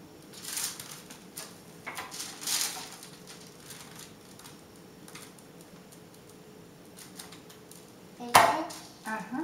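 Short crinkles and light taps of a foil sheet and Play-Doh tools on a table, then one loud, sharp knock about eight seconds in as a wooden mallet strikes the tabletop.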